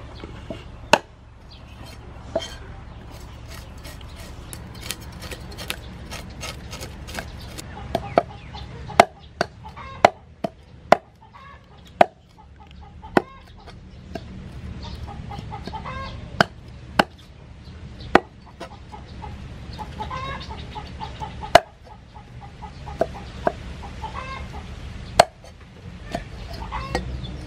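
A cleaver scraping scales off a fish on a wooden chopping board, broken by sharp knocks of the blade against the board at irregular intervals, about eighteen in all.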